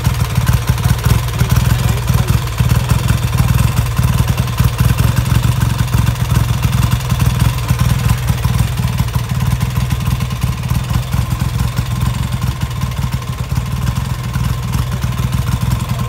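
BSA Gold Star's single-cylinder engine idling steadily with a quick, even beat.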